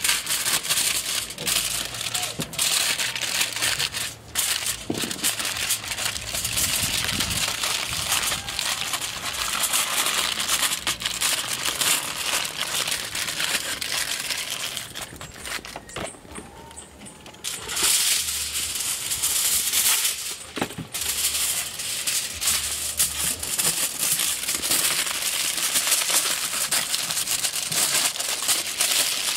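Aluminium kitchen foil crinkling and crumpling as it is folded and pressed tightly around food by hand, with a short lull about halfway through.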